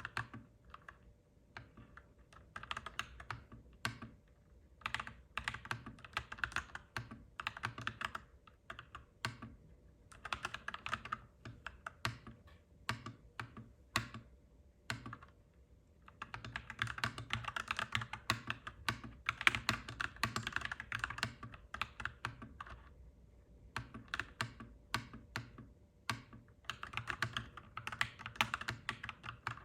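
Typing on a clacky mechanical keyboard: fast runs of keystrokes lasting a few seconds, broken by short pauses, over a faint steady hum.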